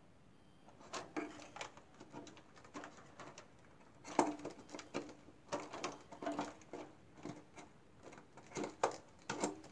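Irregular small clicks, taps and rattles of a plastic servo and metal pushrods being fitted by hand into the wooden servo tray of a model airplane fuselage, with some taps sounding hollow in the fuselage. They start about a second in and continue in uneven clusters.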